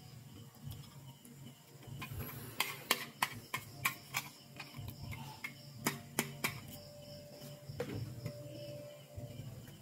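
A small pink plastic toy hand mirror being handled and set down, making a quick run of sharp plastic clicks and taps a few seconds in, and a few more just past halfway.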